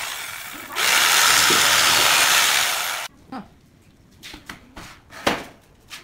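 Electric jigsaw cutting through pallet boards. It eases off briefly just under a second in, then runs at full speed again until it stops abruptly about three seconds in. After that come a few light wooden knocks from a pallet being handled, with one sharp knock a little after five seconds.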